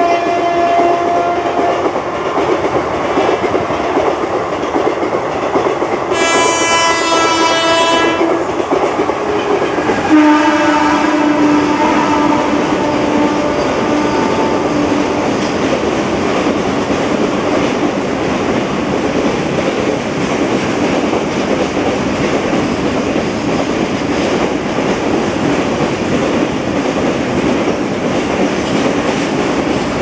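Electric locomotive horns of a WAP-4 express and a WAG-7 freight engine blaring: one tone dies away in the first two seconds, a brighter blast comes about six seconds in for two seconds, and a long one about ten seconds in sags slightly in pitch and holds for about five seconds. Under and after them is the steady rumble of a long container freight train running past.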